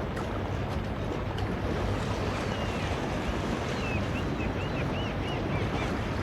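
Steady rush of wind and sea, with a quick run of short, high chirps from a small bird from about two seconds in.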